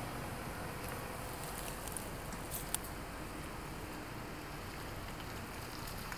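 Steady low-level background noise with no clear source, and a few small clicks about two and a half seconds in.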